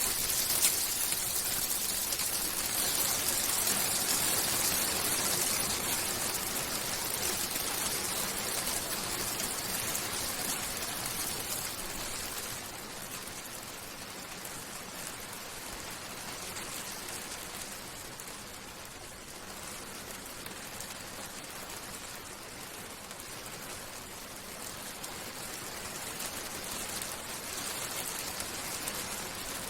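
Hailstorm: a dense hiss of countless small hailstones striking. It is heavier for the first twelve seconds or so, then eases and builds slightly again near the end.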